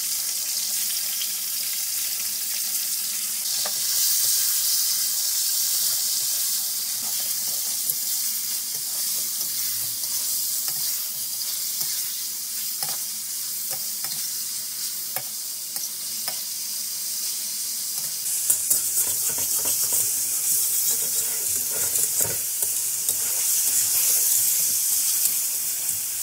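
Chicken pieces frying in hot oil with garlic-ginger paste in a metal wok: a steady sizzle, with a flat spatula scraping and knocking against the pan as the pieces are turned, more often in the last several seconds.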